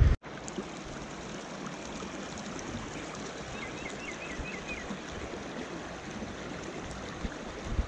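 Steady rushing of flowing stream water. A brief run of faint high chirps comes about halfway through.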